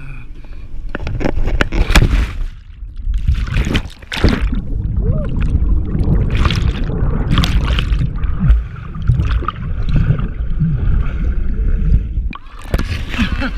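A person plunging into the sea with a splash. Then several seconds of muffled underwater bubbling and gurgling as the camera stays submerged. Splashing returns near the end as the swimmer surfaces.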